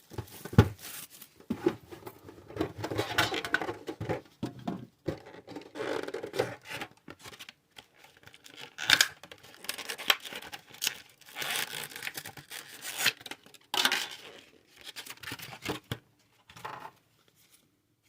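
Plastic wrapping being torn and crinkled off a Pokémon card tin, in irregular bursts with handling scrapes. There is a sharp tap about half a second in.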